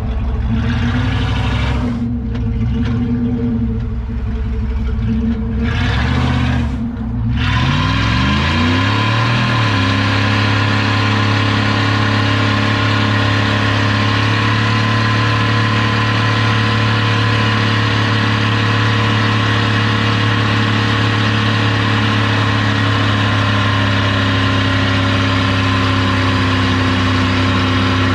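Truck engine running, then revved up sharply about seven seconds in and held steady at high revs.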